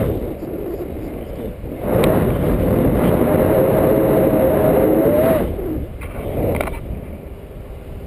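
Wind rushing and buffeting over an action camera's microphone during a tandem paraglider flight. From about two seconds in, a steady tone rises over the wind for about three seconds, then falls away.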